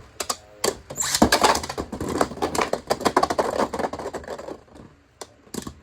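Two spinning battle tops, a 3D-printed custom Beyblade and a Beyblade X top, clashing and rattling in a plastic Beyblade X stadium: a rapid flurry of sharp hits and clatter that thins out about four seconds in, with a couple of last sharp clicks near the end.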